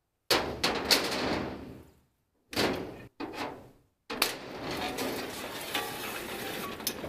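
Metal clanking and scraping as a Cub Cadet Lo Boy 154 garden tractor is brought off a trailer onto steel loading ramps. It comes in a few short bursts of knocks and scrapes, then a longer stretch from about four seconds in.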